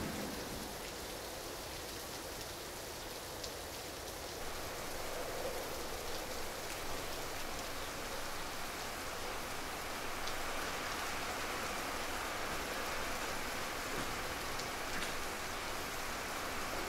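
Steady rain falling, with a few sharper drops now and then; it grows a little louder about four seconds in.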